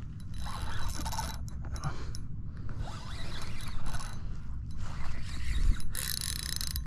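Spinning fishing reel cranked in several bursts with short pauses between, its gears and line giving a scratchy whirring, as a hooked fish is reeled in under load.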